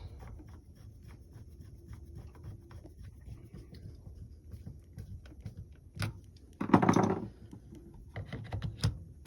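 Handling noise: scattered small clicks and light knocks, with one louder burst of noise about half a second long around seven seconds in.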